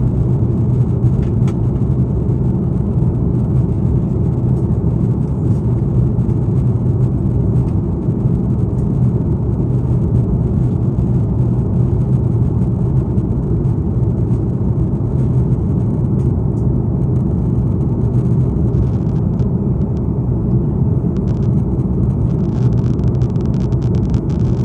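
Steady low drone of an Airbus A330's jet engines and rushing airflow, heard inside the passenger cabin during the climb after takeoff.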